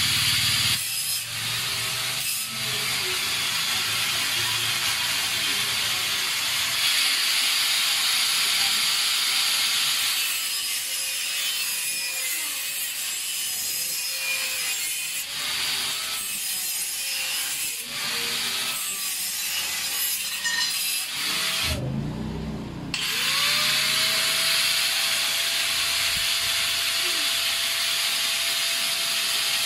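Electric power tool running continuously as it cuts or works material. The motor stops for about a second, some twenty seconds in, then spins back up and keeps running.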